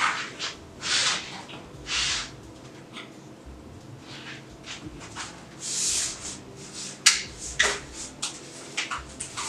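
Kitchen handling noises as a baking pan is taken out of the oven: a few short rustling hisses, then a sharp click or knock about seven seconds in, followed by several lighter clicks and knocks.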